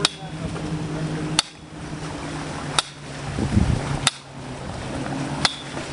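Sledgehammer blows landing in a steady rhythm, five strikes about a second and a half apart, a couple of them leaving a brief ring. A steady low hum runs underneath.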